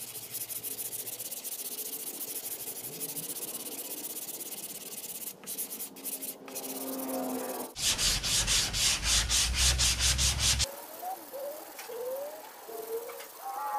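180-grit sandpaper on a small hand block rasping back and forth over cured polyester glazing putty on a car body panel, in quick short strokes. A louder, heavier run of strokes comes past the middle, then lighter strokes near the end.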